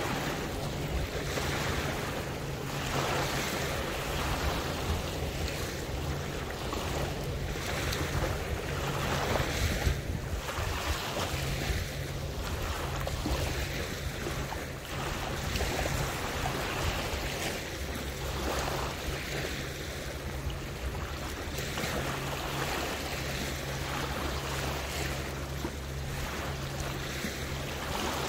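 Intracoastal waterway water washing and lapping in repeated surges every second or two, with a steady low hum underneath.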